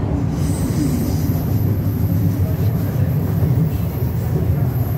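Inside the passenger car of a C301 steel-wheel metro train running at speed: a steady low rumble of wheels on rail, with a thin high whine that comes in just after the start and holds.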